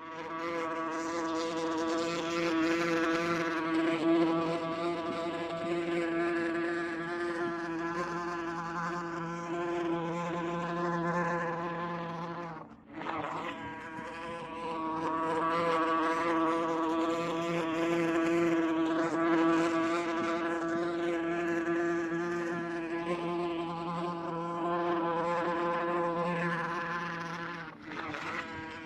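A wasp buzzing in flight: a steady droning buzz that wavers slightly in pitch. It breaks off briefly about 13 seconds in and again near the end.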